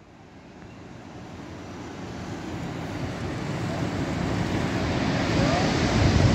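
Steady outdoor rushing of wind and distant surf, fading in from silence and growing steadily louder.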